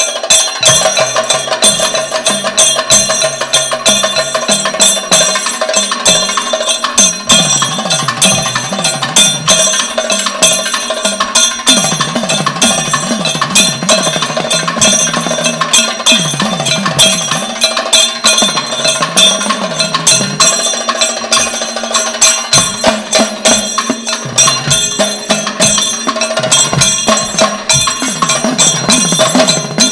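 Kathakali Purappadu music: a dense, steady rhythm of drums, hand cymbals and a ringing gong, with a voice singing over it.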